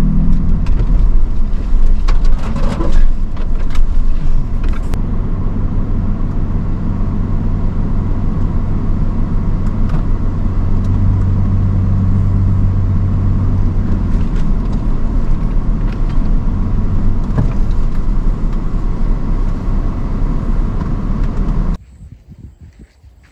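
Off-road vehicle engine running as it drives a rough trail, with knocks and rattles in the first few seconds, then a steady engine hum. The sound cuts off suddenly near the end.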